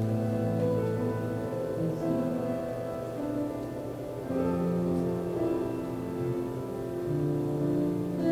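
Slow instrumental meditation music on a keyboard: sustained chords held for a second or more each and changing gently.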